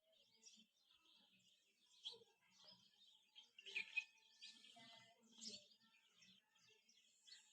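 Faint bird chirping, many short high calls scattered throughout, loudest about four seconds in.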